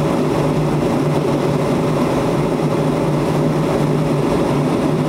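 Steady cabin noise of a jet airliner in flight, heard from inside the cabin: an even rush of air and engine noise with a steady low hum.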